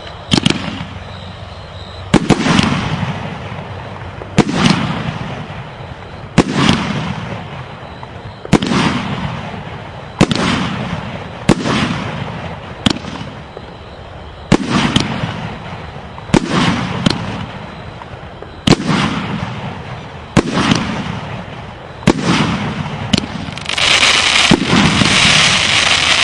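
Fireworks going off: a sharp bang every second or two, each followed by a fading rumble, with a few smaller pops between. Near the end a dense, loud crackling hiss builds up and carries on.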